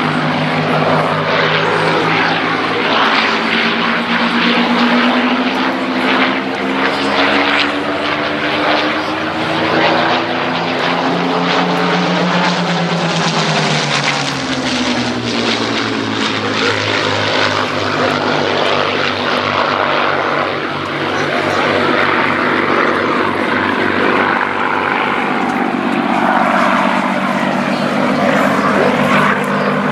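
Two Supermarine Spitfire Mk.IXs flying past in formation, their Rolls-Royce Merlin V12 engines running together. The engine pitch drops sharply as the pair passes overhead about halfway through.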